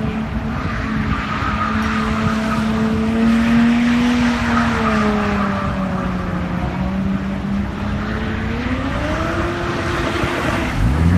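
A Jaguar car's engine held at high revs while its tyres skid and squeal. The engine note dips, then climbs again about nine seconds in.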